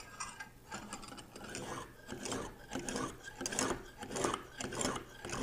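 Lansky extra-coarse honing stone stroked along a steel knife edge, a repeated scraping rasp about every two-thirds of a second.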